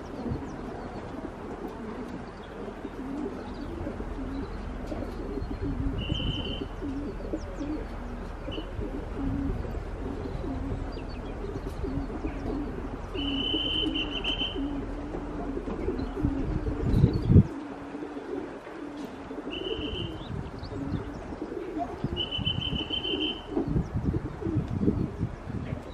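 Pigeons cooing steadily, with a small bird's short high trills breaking in five times. A loud low rumble, like wind buffeting the microphone, swells and cuts off suddenly about seventeen seconds in.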